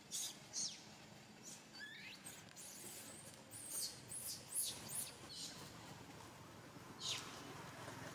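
Baby monkey squealing: a string of short, high-pitched squeaks that fall in pitch, loudest about four and a half seconds in and again about seven seconds in.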